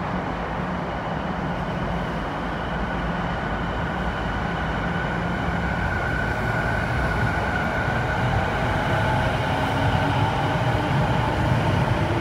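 Rinkai Line 70-000 series electric train pulling away from the platform: the motors whine and the wheels rumble, getting gradually louder. From about halfway the whine climbs slowly in pitch as the train gathers speed.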